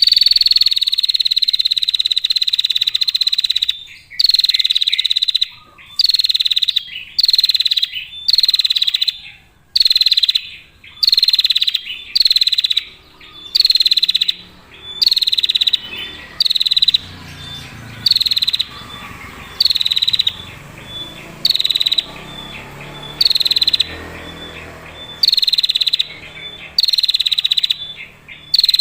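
Female prinia (prenjak) giving its rapid, buzzing 'ngetir' trill, pitched high around 4 kHz: one long trill of nearly four seconds, then a quick series of roughly one-second trills separated by short pauses.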